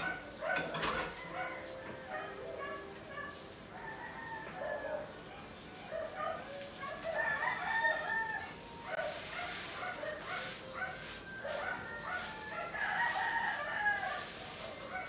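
Chickens clucking and a rooster crowing in short, repeated calls, with brief clatters of dishes and plastic containers being handled at a sink.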